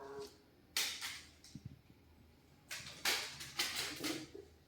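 Several short scraping and knocking noises: one about a second in, then a run of them through the second half.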